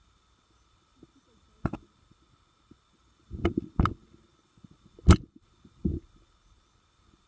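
Something knocking and bumping against an underwater camera housing: a few sharp knocks, a cluster about three and a half seconds in and the loudest a little after five seconds.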